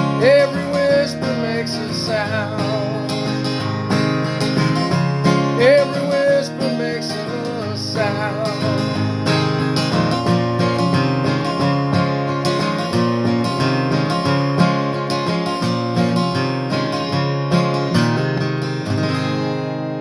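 Instrumental outro of a song: strummed acoustic guitar under a lead line with a few sliding notes, finishing on a held chord that rings out near the end.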